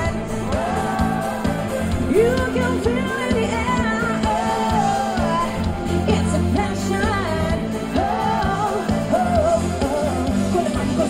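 Live band playing a 1990s dance-pop song, with a singer's voice over a steady bass line.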